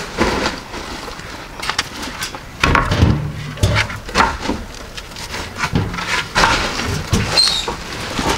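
Wooden boards knocking as they are handled and laid down, a string of irregular wooden knocks.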